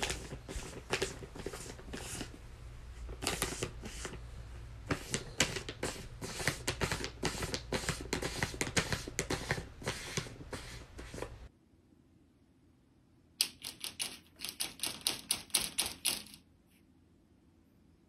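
A plastic cat-treat bag crinkling and crackling in quick, irregular clicks as a cat paws at it, stopping after about eleven seconds. After a short silence, another run of quick clicks comes near the end.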